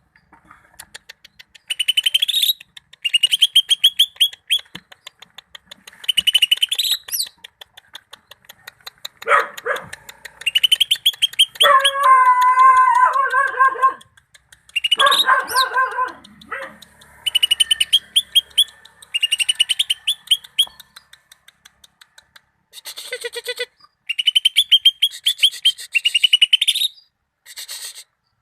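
Cucak ijo (green leafbird) singing: loud, rapid chattering phrases repeated every second or two with short pauses, and a lower, fuller run of notes in the middle.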